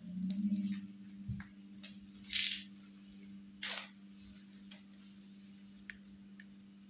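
Small electric drive motor humming steadily as it lowers a hinged window-sash lid on gas struts. A click about a second and a half in and two short rasping noises follow as the frame moves down.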